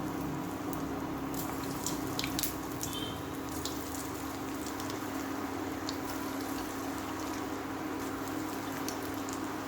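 Elephant-foot yam kola balls deep-frying in hot oil: a steady sizzle with scattered crackles and pops, over a steady low hum.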